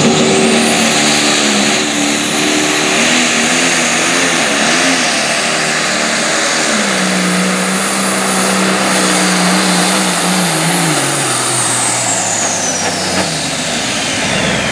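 John Deere pulling tractor's turbocharged diesel engine at full power hauling the sled down the track, with a high turbocharger whistle over the engine. The whistle climbs right at the start, holds, and falls away in the last few seconds as the engine winds down at the end of the pull.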